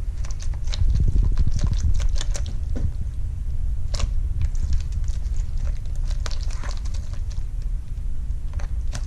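Glue slime being stirred in a bowl as contact solution activates it: irregular sticky clicks and squelches over a steady low rumble.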